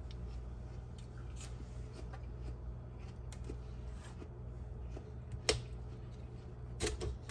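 Faint handling sounds and light ticks over a steady low hum, with a sharp click about five and a half seconds in and two more near the end.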